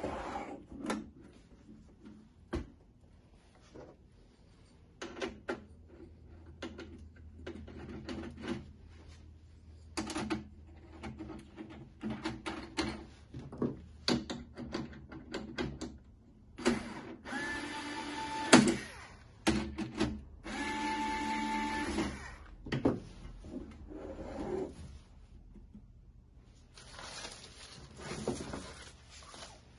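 Handling noises from assembling a stainless-steel flat-top griddle: scattered knocks and taps of the metal body and its screw-in feet, two longer stretches of scraping with a squeaky tone in the middle, and plastic bag rustling near the end.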